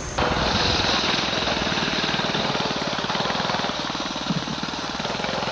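Go-kart's small engine running with a fast, even buzz of firing pulses as the kart drives past. It cuts in abruptly and eases off slightly as the kart moves on.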